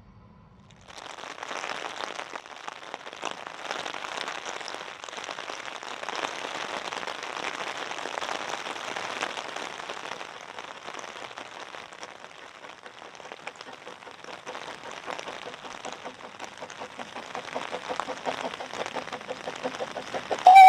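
Small narrow-gauge steam locomotive, the George England 0-4-0 saddle tank Welsh Pony, working a goods train. Its exhaust is a rough, crackling hiss that begins about a second in and turns into more distinct beats as it draws near, with a short, loud tone right at the end.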